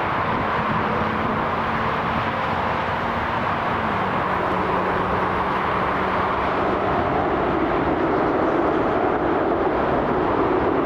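Jet airliner engines at high power, a steady loud rush with a humming tone that drops slightly in pitch about four seconds in.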